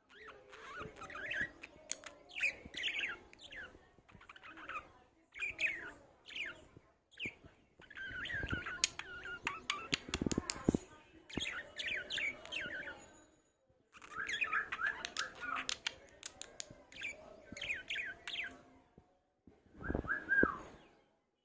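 Small pet parrot chirping and chattering in quick warbling bursts with short pauses and a few sharp clicks, ending with a single louder call.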